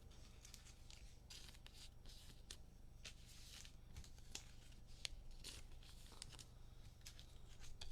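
Faint rustling and light clicks of trading cards and pack wrappers being handled, over a steady low electrical hum.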